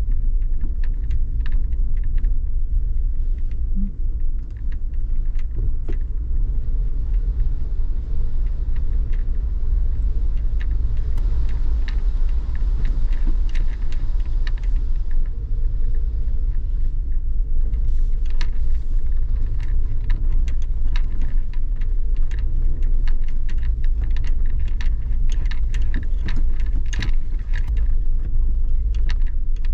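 Suzuki Jimny driving, heard as a steady low rumble of engine and road noise, with frequent small rattles and clicks that grow busier in the second half.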